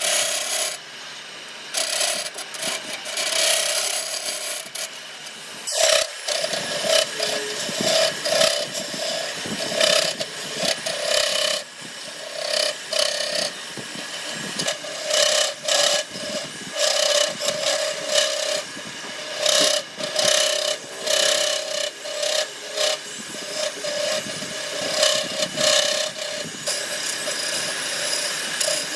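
A tool scraping and rasping against wood in short strokes that repeat about once a second, with a brief pause about six seconds in.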